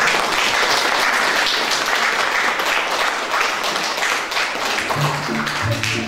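Audience applauding, a steady dense clatter of many hands. Background music comes in about five seconds in.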